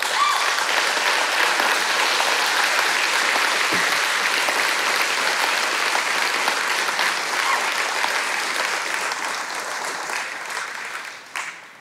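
Congregation applauding, a steady sustained clapping that tapers off and dies away near the end.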